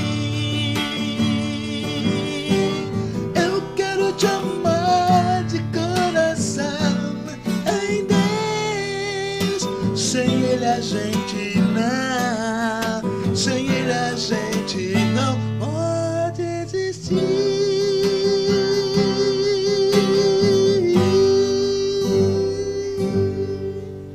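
Christian worship band playing an instrumental passage: strummed acoustic guitar under a melodic lead line with vibrato, fading out at the very end.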